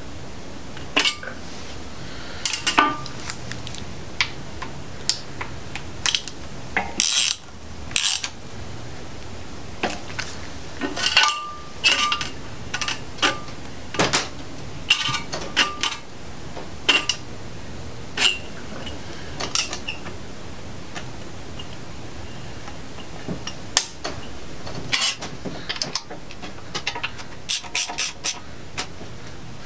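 Scattered metallic clinks and clicks of bolts and hand tools as the rear cover of a 5.3L LS V8 block is aligned and bolted on. A quicker run of ratchet clicks comes near the end as the cover bolts are tightened.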